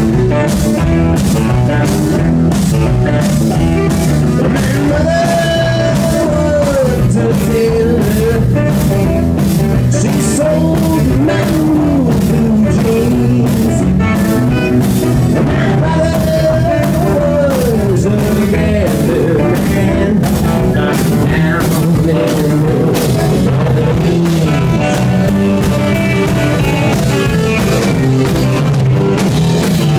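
Live blues-rock band playing: hollow-body electric guitar, electric bass, drum kit and tenor saxophone, with a melody line that bends and slides in pitch.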